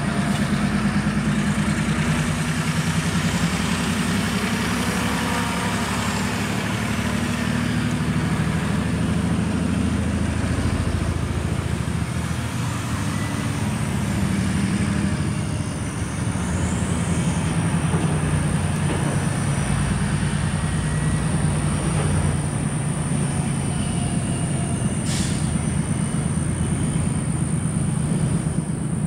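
Diesel switcher locomotive running steadily as it moves a string of covered hopper cars through a grade crossing, steel wheels rolling on the rails with faint wheel squeal. A single sharp click comes near the end.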